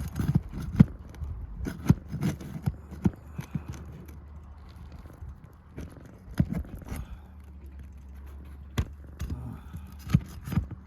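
Irregular knocks, clicks and scrapes of a hand tool working under roof shingles to loosen and pull the roofing nails, which are stuck in tight.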